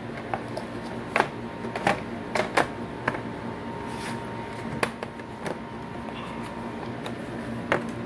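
Irregular clicks and taps of a laptop's plastic bottom cover being set in place and pressed down by hand, about eight in all, over a steady faint background hum.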